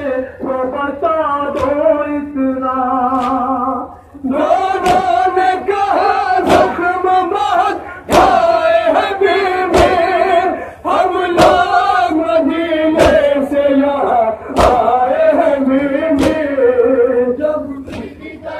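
Men chanting a Shia noha (Urdu lament) in a loud, sung recitation led on a microphone, broken by a short pause about four seconds in. Sharp, evenly spaced thuds about every one and a half seconds keep time under it: the chest-beating of matam.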